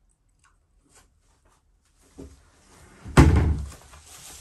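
A soft knock about two seconds in, then one loud heavy thump about three seconds in that dies away over half a second.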